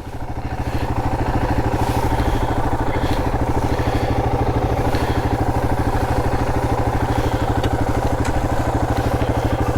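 Single-cylinder 250 cc trail motorcycle engine running at a steady, even beat, with no revving.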